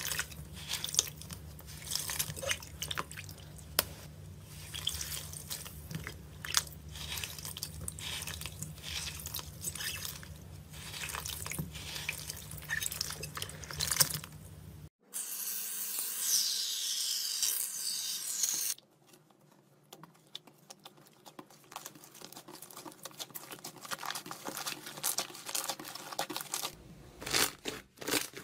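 Hands crushing a soaked block of green floral foam in a bowl of water, giving dense wet crackling and squelching. About halfway through comes a few seconds of brighter rushing water as the crumbled pieces are swirled. After a quieter stretch, thick slime is squeezed near the end with sticky popping clicks.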